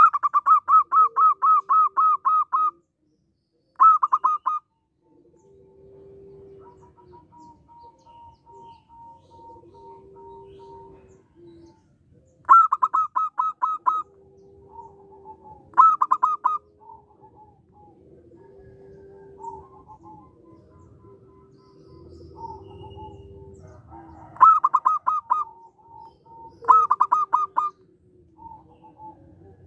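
Zebra dove singing: six bursts of rapid staccato cooing notes, several a second, the first and longest lasting about two and a half seconds. Softer, lower drawn-out coos sound between the bursts.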